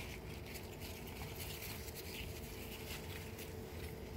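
Faint rustling of pole bean leaves and soft scratchy ticks as a gloved hand reaches in among the plants to pick bean pods, over a faint steady hum.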